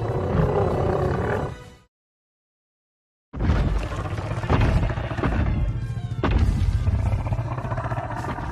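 Designed monster-creature sound effect, the supposed cry of a chupacabra: a rumbling roar that cuts off about two seconds in. After a second and a half of dead silence, a second roaring clip starts and cuts off abruptly at the end.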